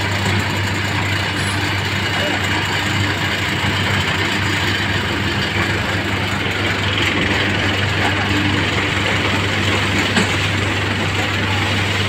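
Mahindra Arjun tractor's diesel engine running steadily, a low even hum with no change in pitch.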